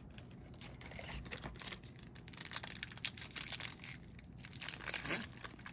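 Crinkling and tearing of a trading-card pack wrapper as cards are handled: a dense run of crackles that grows louder about two seconds in.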